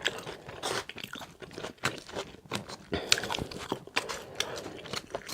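A person chewing a mouthful of crisp salad open-mouthed close to the microphone: many short, irregular crunches.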